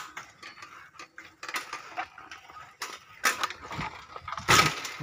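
Old steel roadster bicycle rattling and clicking during a hard-pedalled wheelie attempt, with a loud metallic clatter about four and a half seconds in.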